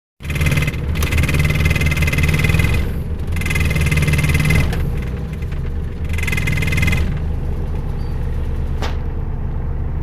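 Maruti 800's three-cylinder engine idling at low rpm inside the cabin, its vibration making the plastic dashboard panels buzz and rattle against the metal. The rattle comes and goes three times over the steady engine hum, and there is a single sharp click near the end. It is the sign of loose, unpadded dash panels that vibrate at idle below about 1000 rpm.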